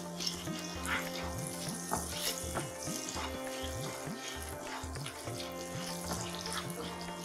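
Butter sizzling in a nonstick frying pan as carom and cumin seeds fry in it, stirred with a wooden spatula, over soft background music.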